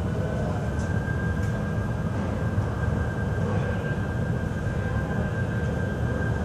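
Machinery running: a steady high whine over a low rumble, with a few faint clicks about a second in.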